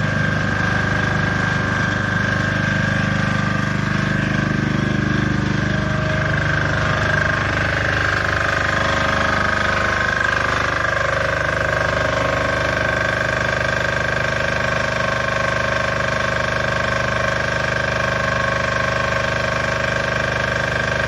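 Small portable engine generator on a mobile asphalt recycling machine running steadily, an even engine hum with a high steady tone over it; the low hum shifts slightly about four seconds in.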